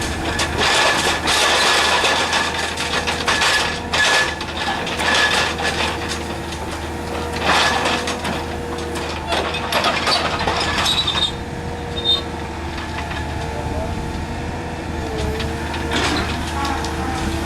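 Excavator running with a steady hydraulic whine, over repeated clanks and scrapes of heavy material being handled, busiest in the first eleven seconds.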